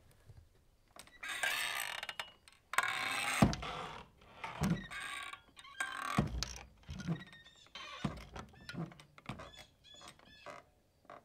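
Dubbed-in sound effects for sprouting seeds: two long rushes of noise, then a run of thuds and creaky, ratchet-like clicks with short squeaks near the end.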